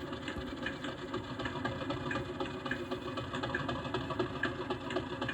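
Sound decoder in a Heljan Class 50 model locomotive playing a diesel engine idling through the model's small speakers, with a faint regular ticking in the sample, following a simulated cold start.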